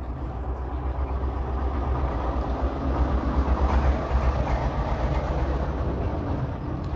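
Low, steady rumble of a passing motor vehicle, growing louder to a peak about halfway through and then easing off.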